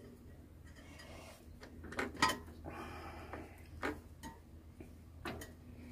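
Irregular light metallic clicks and taps as a bicycle pedal is turned by hand to thread it into the crank arm, with a brief rasp about halfway through.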